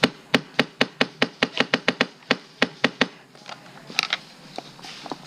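Airsoft gun firing a rapid string of single shots, about fourteen sharp cracks at four or five a second, stopping about three seconds in, with two more shots about a second later.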